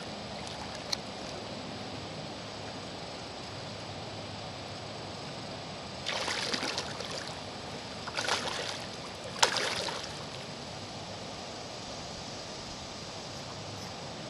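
Hooked carp splashing and thrashing at the water surface three times in quick succession around the middle, over a steady hiss of wind and rippling water.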